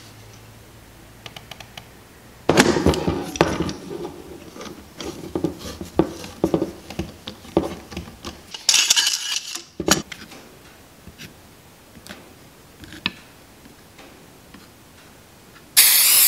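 Clatter and knocks of metal bar clamps being handled and tightened on a wooden glue-up, with a brief scraping rush around the middle. Near the end comes a short loud hiss from an aerosol can of CA glue accelerator being sprayed.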